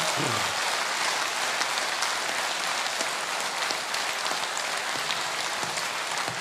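Audience applauding: dense, steady clapping that holds without a break.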